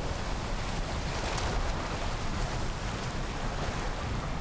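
Steady rushing noise of wind and sea water.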